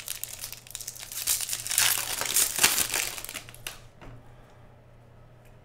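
Foil wrapper of a trading-card pack crinkling and tearing as it is ripped open by hand, loudest about two seconds in and dying away after about four seconds.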